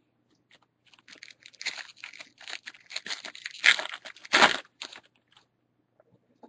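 Wrapper of a Bowman baseball card pack crinkling and tearing as it is ripped open by hand, a run of crackles with the two loudest rips in the second half.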